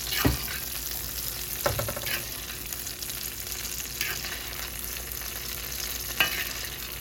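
Butter with garlic and thyme sizzling in a cast-iron skillet around a steak while it is basted, the hot butter spooned over the meat. A few short clinks of the metal spoon against the pan.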